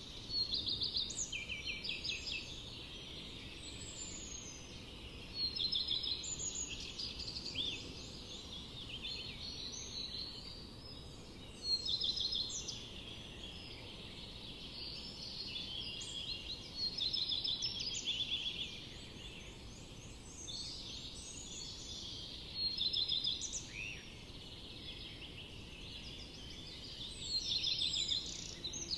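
Birds chirping in bursts of rapid high notes every few seconds, over a steady low background hiss.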